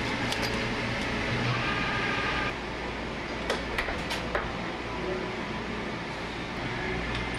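Steady machine-shop hum with light metallic clicks: tools clinking in a tool drawer, then about a second after a cut, three sharp taps of a hand tool against a part in a milling-machine vise.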